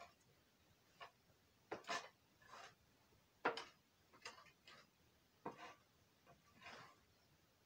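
Long-handled manure fork scraping and scooping donkey manure off a dirt stall floor, in about a dozen short, irregular strokes. The loudest comes about three and a half seconds in.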